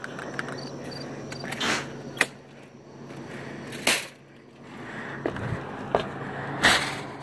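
Handling noise on a phone microphone covered in the dark: a few short rustles and knocks, the loudest about four seconds in and near the end, over a steady low hum.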